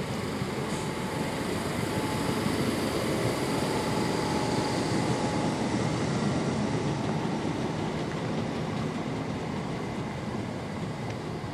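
Electric multiple-unit train running past along the station platform: a steady rumble of wheels on rail with a faint whine. It swells over the first few seconds and slowly eases as the train goes by.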